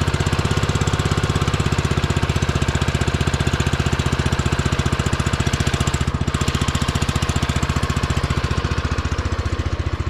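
The small gasoline engine of a power sprayer runs steadily at a fast, even throb, driving the spray pump.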